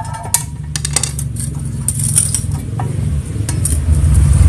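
A motor vehicle's engine running and growing steadily louder, with light metallic clinks from a metal cover plate being handled and lifted off.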